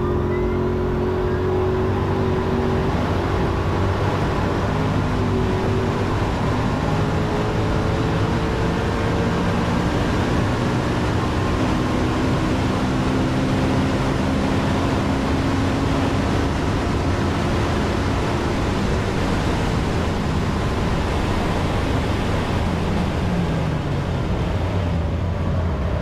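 Onboard sound of a hypercar running flat out at very high speed: a loud, steady rush of wind and road noise over a drivetrain hum. Near the end the hum falls in pitch as the car slows.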